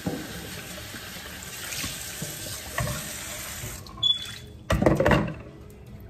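Kitchen faucet running into a plastic bowl being rinsed in a stainless steel sink; the tap stops a little under four seconds in. A small knock follows, then a short loud splashing rush as the bowl is tipped out and set down in the sink.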